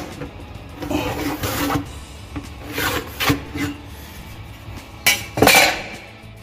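Pencil and square scraping and rubbing on a plywood cabinet side as a line is marked for a drawer slide: three rasping strokes, the last and loudest about five seconds in.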